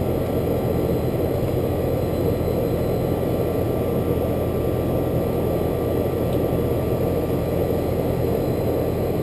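Outdoor air-conditioner condensing unit running steadily: the compressor's low hum under the rush of the condenser fan. The compressor has just been brought back to running with a 5-2-1 hard start kit on an old, dirty system.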